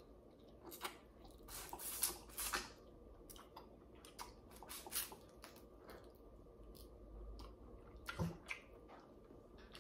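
Close-up mouth sounds of eating boiled seafood: wet smacks, sucking and chewing as he bites and picks at shellfish with his fingers. They come as scattered short clicks, bunched in the first few seconds and again near the end.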